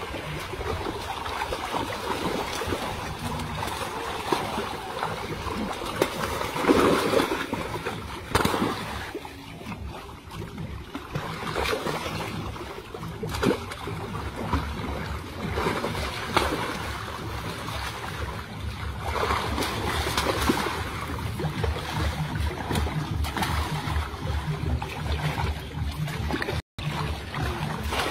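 Water splashing and churning as many large fish thrash inside a seine net being hauled closed in a shallow muddy pond, with people wading through the water. A low throbbing sound joins in the second half.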